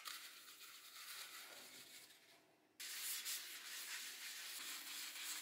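A paper towel rubbing oil over the inside of a coated saucepan, then, starting abruptly and louder about three seconds in, wiping the cups of a four-hole frying pan. This is new cookware being coated with oil to keep it from sticking.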